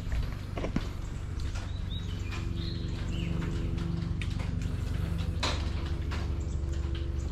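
A motor running with a steady low hum that grows louder toward the end, with a few scattered knocks and a couple of short bird chirps about two to three seconds in.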